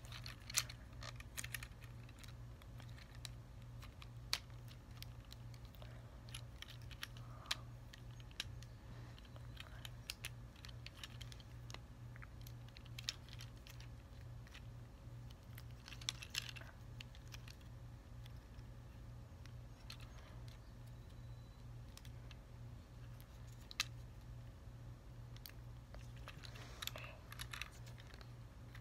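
Plastic parts of a Transformers Studio Series 29 Sideswipe action figure clicking and snapping as it is transformed by hand: scattered, irregular clicks, a few sharper than the rest, over a steady low hum.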